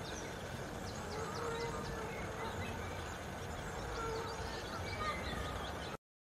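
Outdoor ambience with small birds chirping repeatedly over a steady background hiss; it cuts off abruptly to silence near the end.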